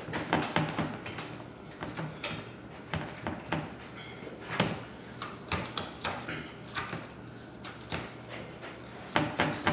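Knife cutting meat and gristle from the lower jaw of a longhorn bull skull, with the skull handled on a wooden table: a string of irregular short clicks and knocks, a couple a second.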